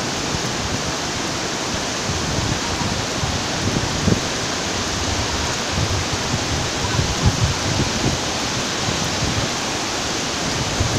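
Heavy rain falling in a steady hiss, mixed with the rush of a flooded river, with uneven low rumbling underneath.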